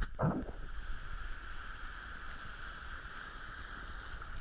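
Shallow sea water sloshing and lapping around a camera held at the surface, a steady muffled wash with a low rumble. A brief splash just after the start.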